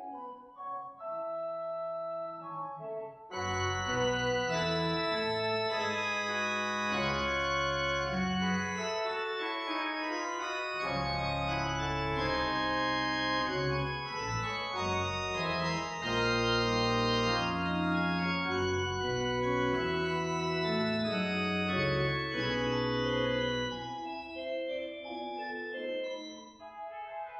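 Pipe organ playing sustained chords. A lighter passage opens it, then deep pedal notes and full chords come in about three seconds in, thinning out again near the end.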